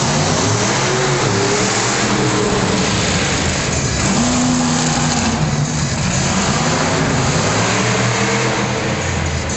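Monster truck engine revving loud, its pitch rising and falling as the truck drives in tight circles on the dirt.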